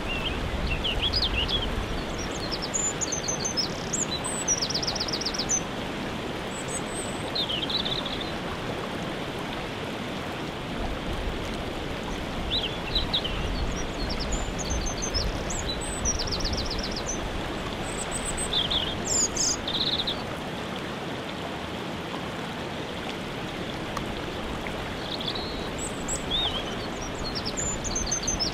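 Waterfall rushing steadily, with songbirds singing short phrases of chirps and quick trills over it in three bouts: near the start, through the middle, and near the end.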